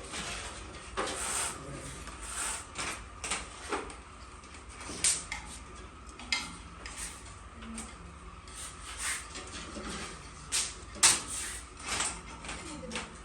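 Irregular clatter and sharp clicks of hen's eggs being handled and set into egg trays during collection, the loudest knocks about five and eleven seconds in.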